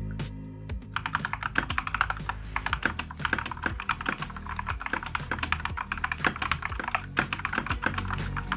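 Fast typing on an Akko 5108S mechanical keyboard with Akko CS Jelly linear switches: rapid clacking keystrokes that start about a second in, over background music.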